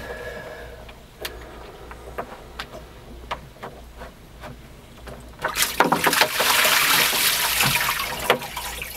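A few sharp plastic clicks as the knotmeter paddlewheel sensor is worked out of its thru-hull fitting. Then, about five and a half seconds in, water gushes loudly in through the open thru-hull for about three seconds, stopping suddenly when the blanking plug goes in.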